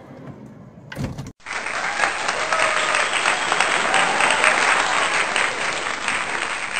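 Applause that cuts in abruptly about a second and a half in and goes on steadily, after a short knock.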